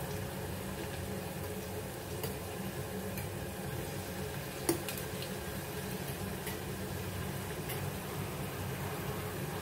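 Potato pieces frying in hot oil in a wok: a steady sizzle with faint scattered crackles over a low steady hum. There is one sharp click about halfway through.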